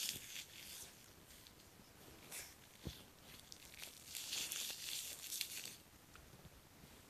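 Plastic rubbish crackling and crinkling as a Shiba Inu bites and tugs on it, in short bursts near the start and a couple of seconds in, then a longer stretch about four seconds in.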